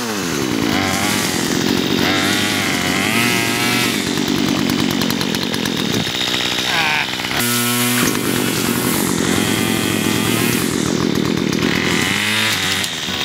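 Gas chainsaw running, its engine revved up and down over and over, dropping briefly to a steady idle about seven seconds in before revving again.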